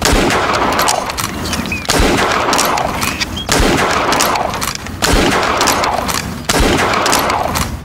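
A series of loud gunshot-like bangs, about one every second and a half, each with a long noisy tail, as a revolving-cylinder Nerf dart blaster is fired shot after shot.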